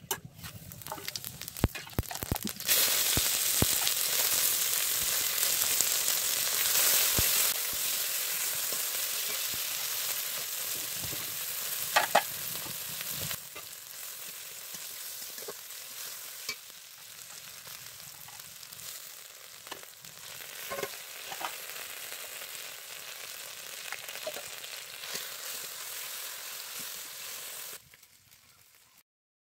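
Tempering spices and masala going into hot oil in a kadai and frying with a loud sizzle that jumps up about three seconds in, then gradually eases off. A spoon knocks and scrapes against the pan now and then as it is stirred.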